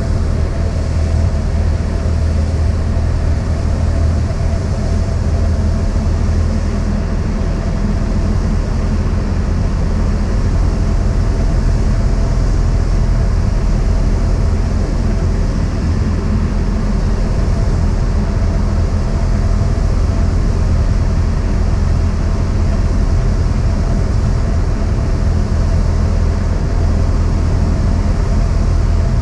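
Cessna 172's piston engine and propeller droning steadily, with a deep hum and a few steady tones above it and no change in pitch.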